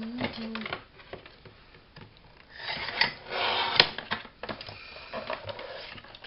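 Sliding paper trimmer cutting through card: the cutting head is drawn along its rail in a scraping slice of a little over a second, ending in a sharp click. Light card handling and small taps come before and after.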